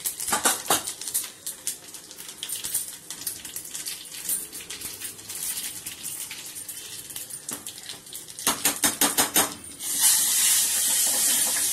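Mustard seeds, split urad dal and cumin crackling and popping in hot oil in a small kadai for a tempering, with scattered pops and a quick run of them about eight and a half seconds in. A steady sizzle starts about ten seconds in.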